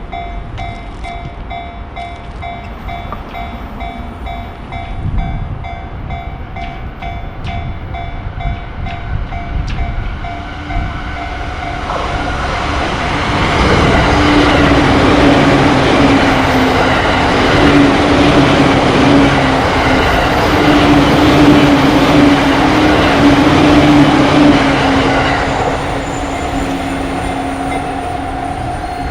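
Japanese level-crossing warning bell ringing in a steady repeating pattern, then a JR Yokosuka Line electric train comes through: its noise builds about twelve seconds in, stays loud for about twelve seconds and drowns out the bell, then eases off near the end as the bell is heard again.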